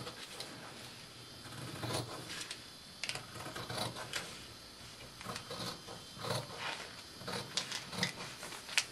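Scissors cutting through fabric along a pinned pattern: irregular snips, one every half second to a second.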